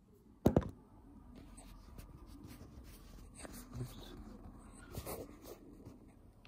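A sharp knock about half a second in, then faint rustling and a few light clicks as plastic takeout food containers are handled.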